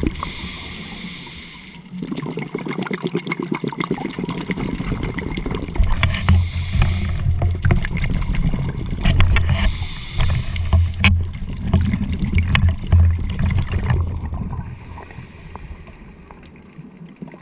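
A scuba diver breathing through a regulator underwater. Each inhalation is a hiss, followed by the low bubbling rumble of exhaled air. There are about three slow breaths, and the sound fades near the end.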